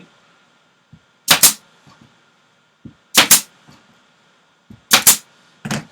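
Pneumatic staple gun firing four times, driving staples through fabric pulled tight over a wooden board headrail. Each shot is a sharp double snap, coming roughly every two seconds, with the last two closer together.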